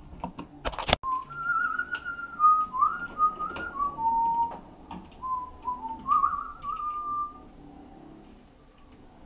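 A man whistling a tune of held notes that slide from one to the next, starting about a second in and stopping near the end. It opens with a few light clicks and one sharp click.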